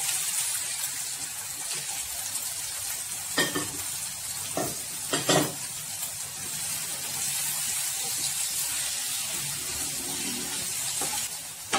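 Sliced onions and tomatoes sizzling steadily in hot oil in a nonstick kadai. A few scrapes and knocks of the spatula against the pan come about three and a half to five and a half seconds in, and once more near the end.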